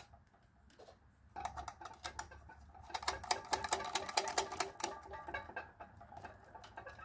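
Small metal clicks and rattling as nuts, washers and a crimped ring terminal are handled and turned by hand on the threaded binding posts of a railroad signal relay. A rapid, busy clatter starts about a second in and thins out near the end.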